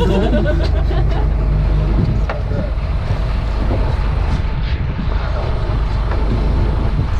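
Charter boat's engine running steadily, a continuous low drone with water and wind noise over it.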